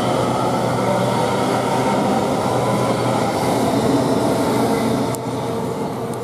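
Class 807 electric multiple unit pulling away from the platform, its traction motors and wheels running on the rails. The sound eases off about five seconds in.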